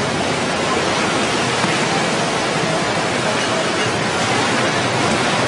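Floodwater of the swollen Ganges river rushing past in a steady, unbroken wash of noise.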